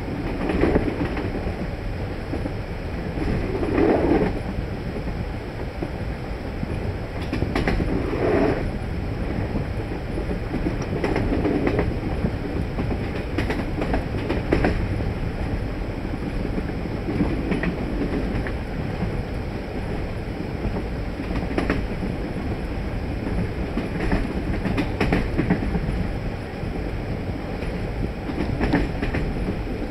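Passenger train running at speed, heard from inside the carriage: a steady low rumble that swells louder every few seconds, with wheel clicks over the rails.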